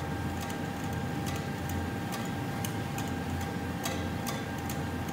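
Belt conveyor head pulley and gear-motor drive running with a spring-tensioned primary scraper on the rubber belt: a steady hum with a faint whine and a regular clicking about two to three times a second. The drive's shaft coupling is badly misaligned because of a broken coupling element.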